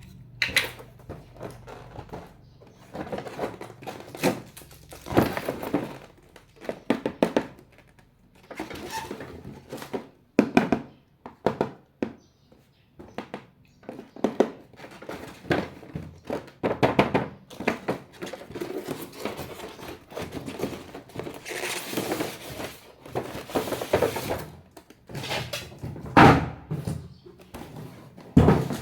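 A string of irregular thunks and clattering knocks, as of hard objects being handled and set down, with short rustling stretches between.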